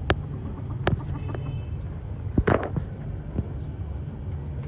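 Steady low rumble broken by a few sharp clicks or knocks, the loudest cluster about two and a half seconds in, with faint high chirps behind.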